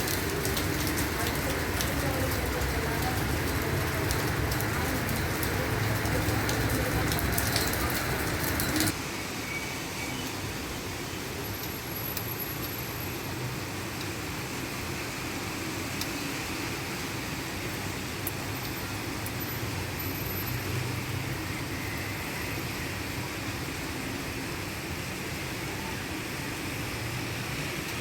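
Heavy rain pouring, with many sharp drops pattering on surfaces. About nine seconds in it cuts off abruptly to a quieter, steady hiss that runs on evenly.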